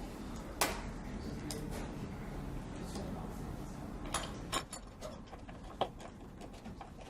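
Flat-pack shelf parts being fitted and screwed together by hand: a handful of sharp clicks and knocks, the loudest about half a second in and a cluster about four to six seconds in.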